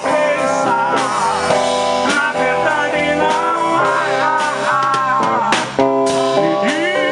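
Rock music played by a small live band: electric guitar with singing over it.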